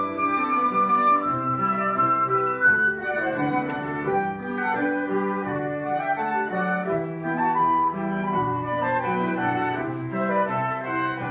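Small wind ensemble playing a slow piece: a silver concert flute carries the melody over ocarinas, with several parts moving in held notes.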